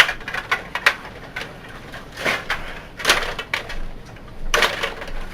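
Stiga table hockey game in play: the rods sliding and spinning and the puck clacking off the plastic players and boards. It makes a run of sharp clacks with short rattling bursts about two, three and four and a half seconds in.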